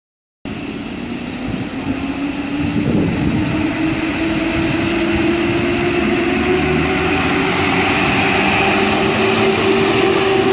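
PKP EU07 electric locomotive hauling a passenger train into the platform, a steady whine over a rumble that grows louder as it approaches.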